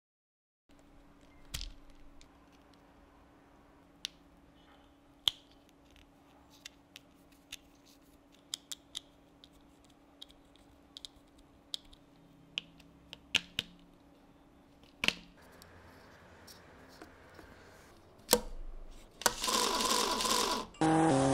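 Sparse light clicks and taps of laser-cut plywood model parts being handled and pressed together, with a small screwdriver turning tiny screws into brass hinges. About three seconds before the end a louder noise starts, and loud music with electric guitar comes in right at the end.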